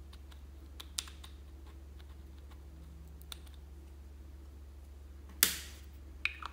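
Scattered sharp plastic clicks and taps from handling a small plastic makeup container, its ball-shaped lid and a plastic spatula, the loudest a little after five seconds in.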